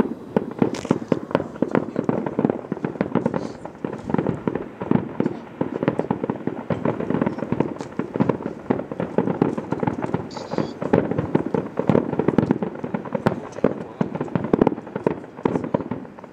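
Fireworks display: a rapid, continuous barrage of aerial shell bursts, many bangs following one another with barely a pause.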